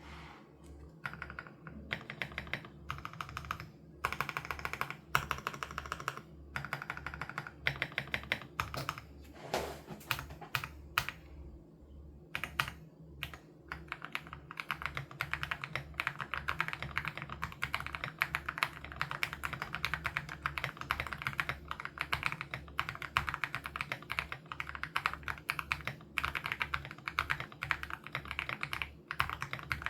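Typing on an AULA F87 Pro mechanical keyboard with HMX Sarcophagus switches: rapid keystrokes in short runs with brief pauses through the first half, then steady, near-continuous typing from about halfway.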